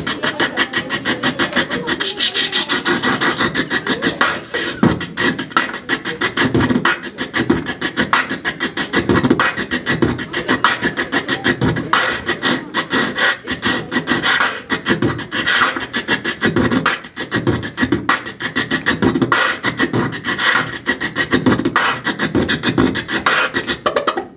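Human beatboxing into a handheld microphone: a fast, unbroken run of percussive mouth sounds imitating kick drum, snare and hi-hat, which cuts off abruptly at the end.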